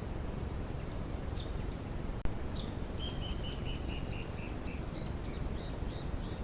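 Wild birds calling: scattered short high chirps, and a run of about eight quick notes, roughly four a second, stepping slightly down in pitch, from about three seconds in. A single sharp click a little over two seconds in, over a steady low background hiss.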